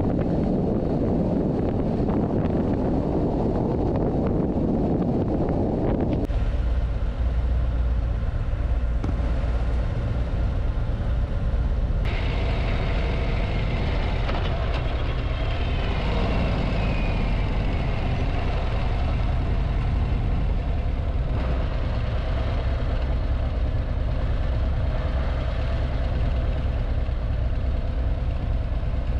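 Motorcycle engine running at steady cruising speed with wind noise, heard while riding. For about the first six seconds wind rush dominates, then the sound changes abruptly to a steady low engine drone.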